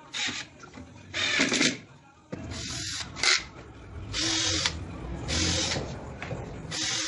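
Cordless drill boring holes into 15 mm MDF panels in short bursts, about six of them, each lasting around half a second.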